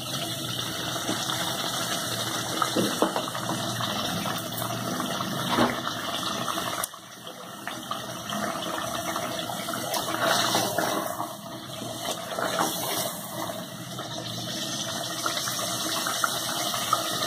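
Steady hissing from a pot of chicken and potato curry cooking, with a sudden drop about seven seconds in before it picks up again.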